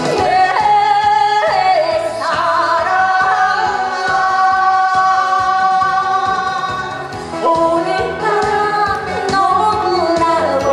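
A woman singing a song into a microphone over amplified musical accompaniment, holding long notes.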